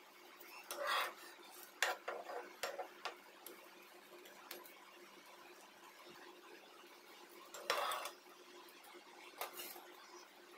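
A metal utensil scraping and knocking on a nonstick tawa as a toasted sandwich is turned over and lifted off. There are a few short scrapes about a second in and around two to three seconds, then a louder scrape near eight seconds.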